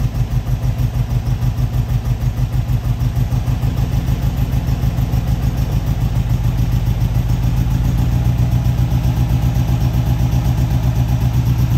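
1953 MG TD's freshly rebuilt four-cylinder engine running steadily at a raised idle, its throttle held open by a pedal clamp and nudged up slightly. The revs are raised so the full ignition advance can be read while setting total timing.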